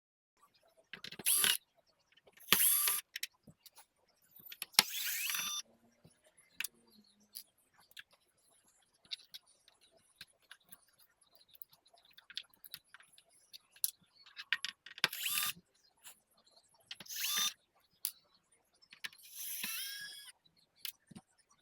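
Small electric screwdriver running in short whirring bursts, about six in all, backing screws out of a PlayStation 5 Slim's chassis, with light clicks and rattles of screws and parts between the bursts.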